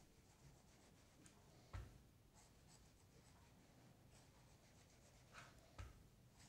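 Very faint scratching and crunching of a kitchen knife cutting into a melon's rind, with a soft knock about two seconds in and another near the end.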